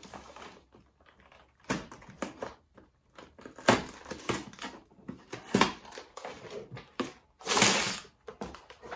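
A cardboard LEGO set box being opened and its contents handled: irregular crinkling and rustling with sharp clicks and knocks, the longest and loudest rustle a little past seven seconds in.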